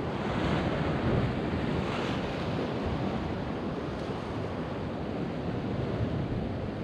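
Sea waves washing against rocks, with a louder wash about half a second in and another about two seconds in, and wind buffeting the microphone.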